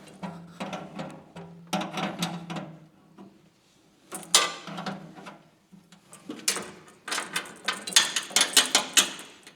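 Irregular clicks, knocks and rattles of hand tools and fittings being worked, thickest near the end, over a faint steady hum.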